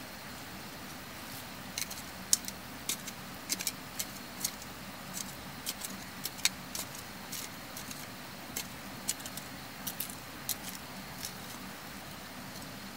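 Metal knife blade digging into dry soil, giving an irregular run of sharp clicks and scrapes as it strikes earth and small stones, for most of the stretch before stopping near the end.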